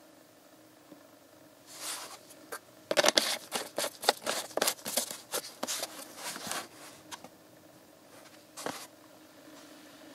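A plastic engine-oil bottle handled in gloved hands: a run of quick crinkly rustles and light clicks, then one more short rustle near the end.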